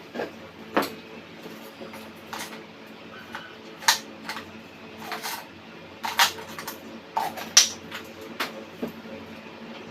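Irregular light clicks, knocks and clanks of metal being handled, about a dozen spread unevenly, the loudest near the middle and again a little past the seventh second, over a steady low hum.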